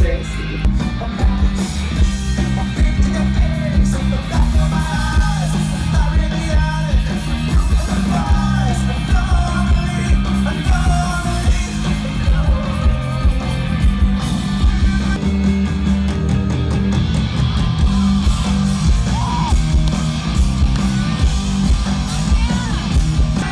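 Live rock band playing loudly with a lead singer, recorded from the crowd at a concert.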